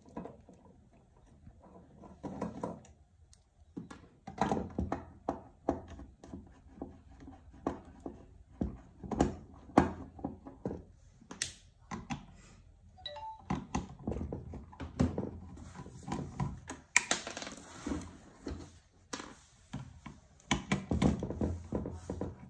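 Irregular clicks, knocks and light clatter of hands and a screwdriver working on an inverter's circuit board and plastic casing while it is taken apart, with one brief metallic ding partway through.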